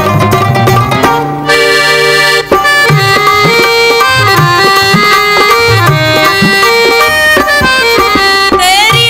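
Instrumental interlude of a Punjabi folk song: a reed instrument like an accordion or harmonium plays a sustained melody over hand-drum beats, after a quick run of plucked-string notes in the first second or so.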